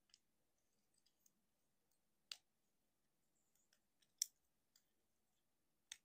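Plastic joints and parts of a Transformers Legacy United Deluxe Class Star Raider Filch action figure clicking as they are moved by hand: a scattering of short, sharp clicks, the loudest a little over two seconds in and just after four seconds.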